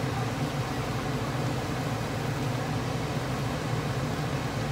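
Steady low hum with an even hiss over it: kitchen background noise around a pan of stew chicken frying on high heat on a gas stove.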